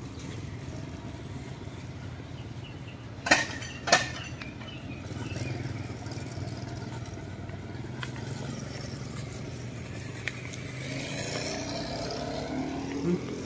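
Street traffic: a steady engine hum from passing cars and motorcycles, with one vehicle's engine rising in pitch near the end. Two sharp clicks come about three and four seconds in.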